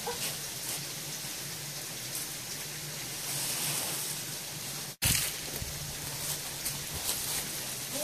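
Steady rushing hiss of running water from a valley stream. The sound cuts out for an instant about five seconds in, and a low rumble joins it afterwards.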